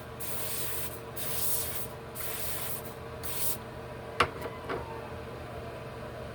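Short hissing strokes, four of them in the first three and a half seconds, as wig adhesive is worked onto the lace. A sharp click about four seconds in and a softer one just after.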